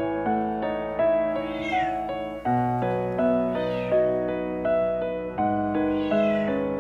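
Cat meowing in distress while being bathed: three drawn-out cries, each falling in pitch, about two seconds apart. Gentle piano background music plays under them.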